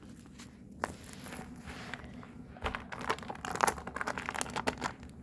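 Squishy toys being handled and set down: crinkling and rustling with small light taps, sparse at first and busiest in the second half.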